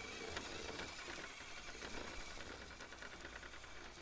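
Faint whir of an Axial SCX10.3 RC rock crawler's brushed motor and geared drivetrain as it crawls slowly.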